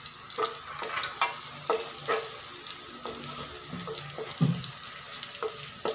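Chopped garlic sizzling and crackling in a little oil in a metal wok while it is stirred with a spatula.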